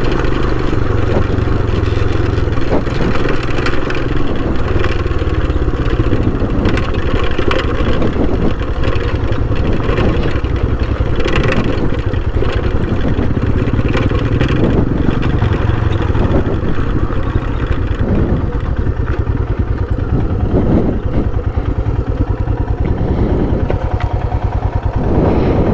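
Royal Enfield Himalayan's 411 cc single-cylinder engine running at low speed over a rough dirt trail, with repeated knocks and rattles from the bike over the bumps.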